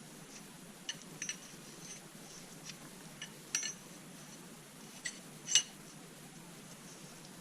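Small metal objects clinking and tapping against each other or on a hard surface, a handful of irregular sharp clinks with brief ringing, the loudest about two thirds of the way in, over a faint steady hum.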